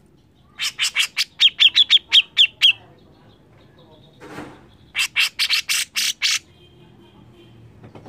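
Grey-cheeked bulbul (cucak jenggot) screeching in two quick bursts of sharp repeated notes, the first of about eleven notes, the second, about five seconds in, of about seven.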